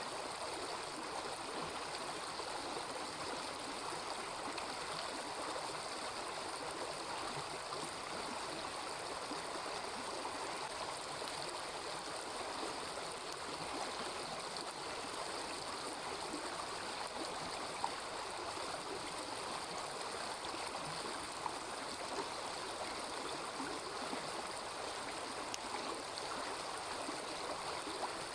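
Small river babbling steadily, with a few faint sharp pops from a campfire, one about two-thirds of the way in and two more near the end.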